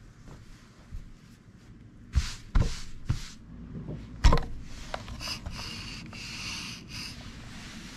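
A clothes iron knocked against the table and set down on a T-shirt several times, about two to four seconds in. Then a steady rubbing hiss as the iron works over the fabric, with a few small clicks.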